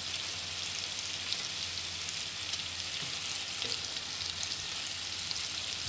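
Bacon-wrapped scallops frying in hot butter in a stainless-steel pan: a steady sizzle with the butter crackling, the heat high enough to brown them.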